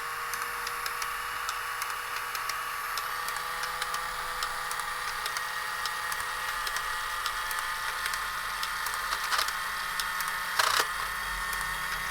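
Tomy Super Cup Football game switched on: its small electric motor and plastic gear mechanism run with a steady whine and light clicking, with one louder clack near the end. The motor had been stuck in one position, which the repairer puts down to oxidised contacts, and now runs freely.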